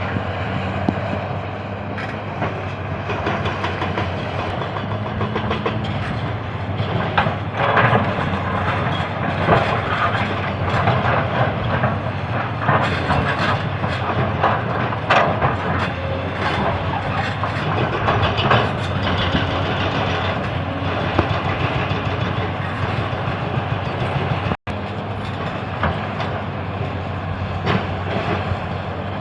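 Excavator's diesel engine running steadily, with heavy metallic clattering and knocking from the working machine that is busiest in the middle stretch.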